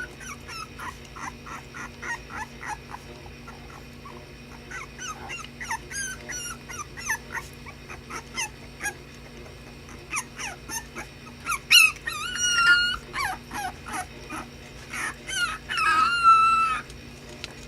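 Basenji puppies whining and yipping in a rapid run of short calls that fall in pitch, with two longer drawn-out whines near the middle and near the end, as the puppies play.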